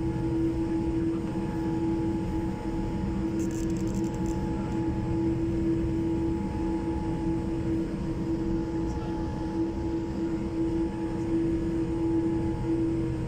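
Boeing 787-8 cabin noise during a slow taxi to the gate: a steady hum with one constant tone over a low rumble from the engines running at idle.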